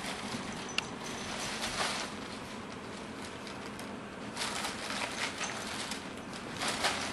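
Crumpled brown packing paper rustling and crinkling in irregular bursts as kittens tumble and burrow through it, with one sharp click about a second in.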